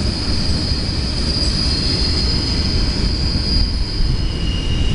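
Tail end of a CSX freight train rolling past: the low rumble of the freight cars on the rails, with a steady high-pitched wheel squeal that fades about three-quarters of the way through as the last cars pull away.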